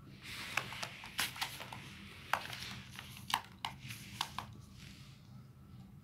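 Crinkling and rustling of tissue paper, with a run of sharp clicks and ticks, from hands holding a tissue-wrapped chick and a feeding syringe. It starts about a quarter second in and dies away near five seconds, over a low steady hum.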